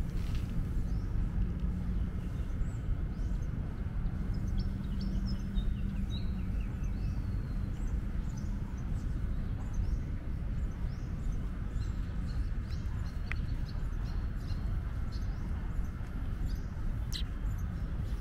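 Outdoor park ambience: small birds chirping off and on over a steady low rumble, with a faint hum during the first half.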